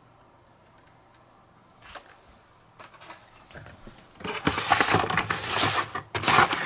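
Hot Wheels blister-card packages rustling and scraping against each other and the cardboard box as a hand gathers them up. There is a light tap about two seconds in, and the rustling is loudest over the last couple of seconds.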